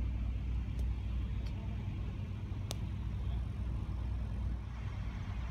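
Steady low hum of an engine running, with a few faint clicks.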